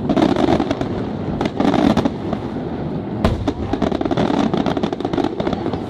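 Aerial firework shells bursting in quick succession, a dense crackle of many small reports with heavier swells, and one sharp bang a little over three seconds in.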